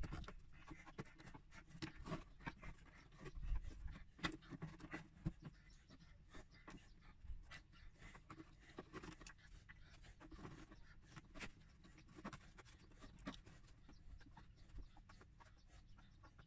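Faint, irregular clicks, knocks and rustling of hands working a drive belt onto the pulleys of a self-propelled lawn mower.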